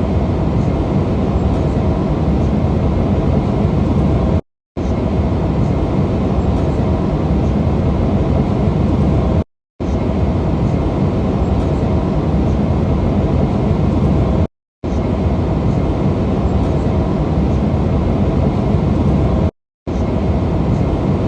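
Airliner cabin noise: a loud, steady rumble of engines and rushing air. It comes in several clips of about five seconds each, with brief silent cuts between them.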